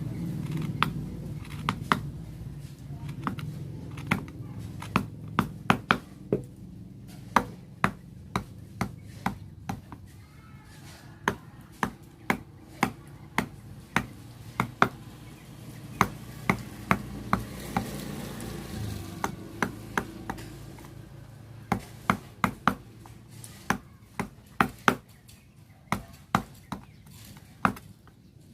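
Sharp, irregular taps, often one to three a second, of a mallet striking a wood-carving chisel into a wooden board.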